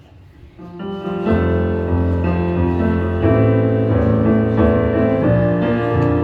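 Slow piano music with sustained chords, fading in over the first second or so and then holding steady.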